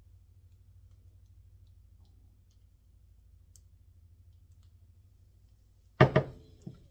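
Faint low room hum, then about six seconds in a sharp wooden knock, a second one right after and a smaller one just before the end, as a large stretched canvas on its wooden frame is lowered and bumps down onto the work table.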